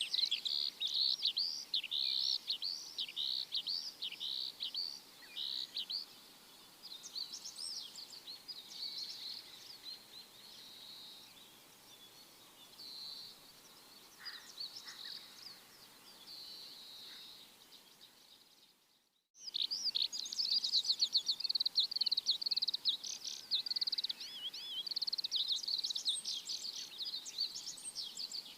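A chorus of small birds chirping and twittering in rapid, overlapping calls. It is quieter for a stretch in the middle, drops to a brief silence about two-thirds of the way through, then returns loud and dense.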